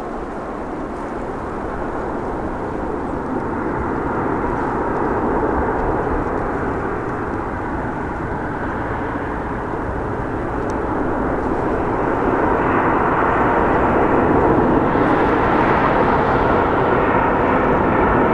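Boeing 737-800 jet on approach, its CFM56 engines running with a steady rushing noise that grows louder as it comes closer, with a higher whine building in the last few seconds.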